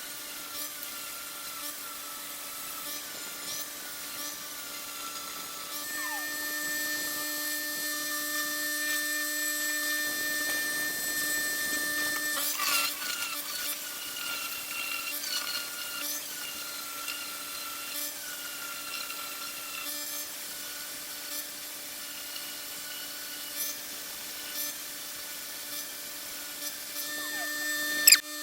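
Electric power tool grinding and sanding an aluminum bronze casting: a steady motor whine whose pitch dips and recovers about every second and a half as the metal is pressed against it, louder for a few seconds after about six seconds in, with one sharp knock near the end.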